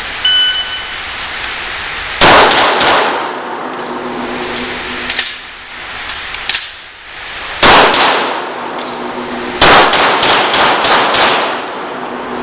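Shot-timer start beep about half a second in, then handgun shots echoing in an indoor range: a quick pair around two seconds in, a single shot around five seconds, another pair near eight seconds, and a rapid string of several shots just before the end.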